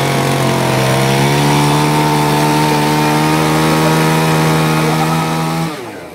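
A small engine revved up and held at a steady high speed, then dropping away and cutting out near the end.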